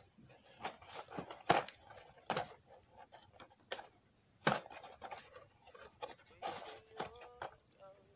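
Paper and cardboard fast-food packaging rustling and crinkling as a fries carton is handled, with irregular scrapes and sharper taps, the loudest about a second and a half in and again past four seconds.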